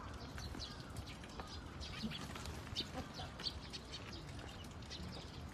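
Small birds chirping: many short, high calls scattered irregularly, with a steady low rumble underneath.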